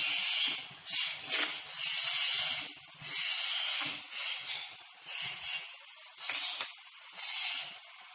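Vegetables sizzling as they are stir-fried in a wok, with a metal spatula scraping and tossing them in about ten irregular strokes, each bringing a surge of hiss.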